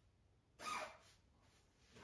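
A cat's short meow about half a second in, falling in pitch.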